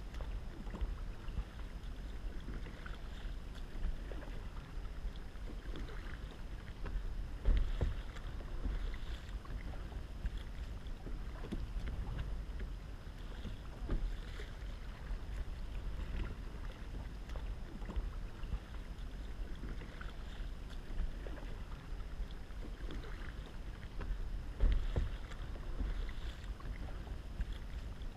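Paddling a plastic sit-on-top kayak: paddle blades splashing every few seconds and water lapping along the hull, over a steady low rumble of wind on the microphone. The loudest splashes come about seven seconds in and again near the end.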